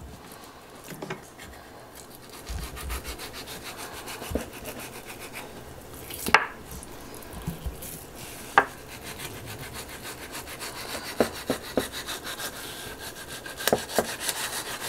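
Chef's knife scraping and sliding along a wooden cutting board as it strips a raw trout fillet from its skin. There are a few sharp knocks, the loudest two around the middle.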